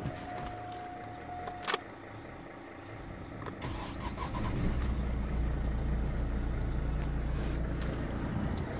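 Opel Astra H's 1.7 CDTI (Z17DTH) four-cylinder turbodiesel being started with the key. A sharp click comes just under two seconds in. About four and a half seconds in, the engine starts and runs steadily.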